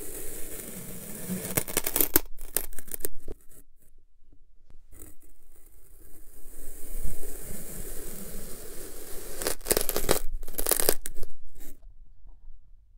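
Knife blade slicing down through pressed kinetic sand, a gritty tearing crunch with crackles. It comes in two long cuts, with a short pause about four seconds in.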